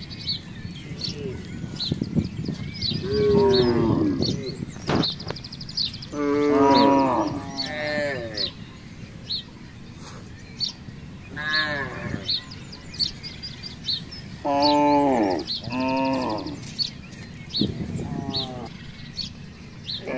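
Zebu-type village cattle mooing: about six separate calls, each about a second long, some falling in pitch.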